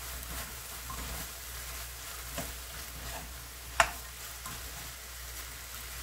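Bean sprouts and squid with chili powder sizzling in a frying pan as a spatula stirs and turns them over, with small scraping ticks. One sharp clack of the spatula against the pan just under four seconds in is the loudest sound.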